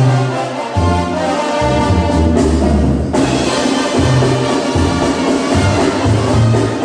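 Live Mexican banda playing an instrumental passage: a sousaphone bass line of held low notes under trumpets and trombones.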